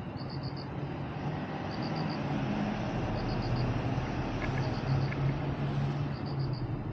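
Street ambience: a steady rumble of passing traffic, with a short high chirp of three or four quick pips repeating about every one and a half seconds.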